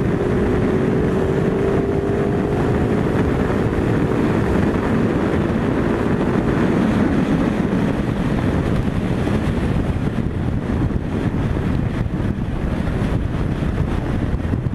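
Ducati Multistrada 950's L-twin engine pulling in sixth gear from about 5,000 rpm as the throttle is opened for a roll-on, under heavy wind rush on the microphone at highway speed. The engine note stands out for the first several seconds, then sinks into the wind.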